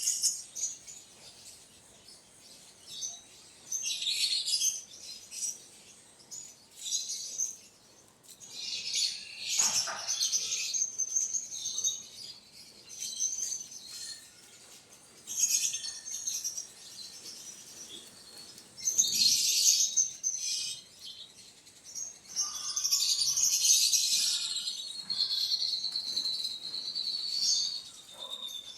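Birds chirping in short, high-pitched bursts every second or two, with a longer, slightly falling call near the end.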